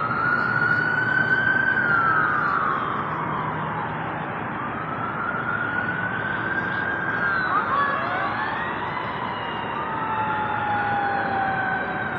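Emergency vehicle siren wailing, its pitch rising and then falling slowly in repeating sweeps a few seconds long; from about eight seconds in a second siren wail overlaps it.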